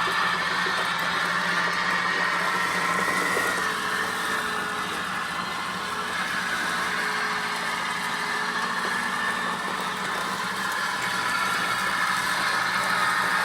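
1/6-scale Armortek Chieftain radio-controlled tank running, its sound pack giving a steady tank-engine sound with a mid-pitched whine that dips slightly about four seconds in and rises again near the end.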